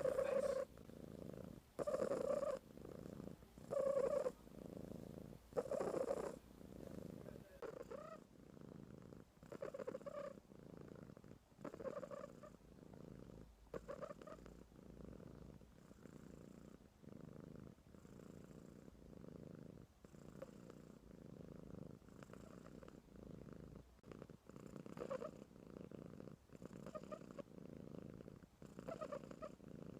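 Ragdoll kitten purring and snoring while asleep, the sound swelling and easing with each breath, louder over the first several seconds and softer after.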